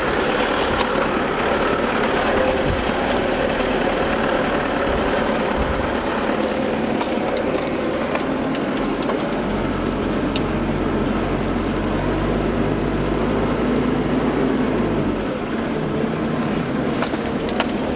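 Car driving, heard from inside the cabin: steady engine and road noise, with a deeper engine drone from about nine to fifteen seconds in and a few short sharp rattles.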